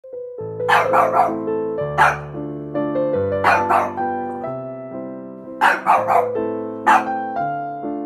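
A dog barking, in quick runs of three with single barks between, over background electric piano music.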